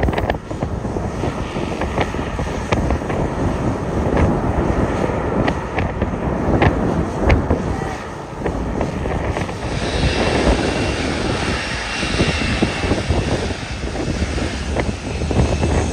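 Boeing 787 jet engines running, heard through heavy wind buffeting on the microphone; about ten seconds in, a higher hiss and a faint steady whine come in.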